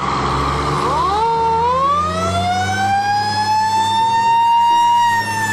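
Fire engine siren wailing: the tone starts about a second in, climbs slowly in pitch, then begins to fall, over a steady low rumble.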